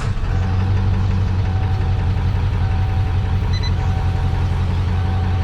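Ford 7.3 Power Stroke turbo-diesel V8 idling steadily just after starting. It now starts because the starter solenoid's cable has been redone.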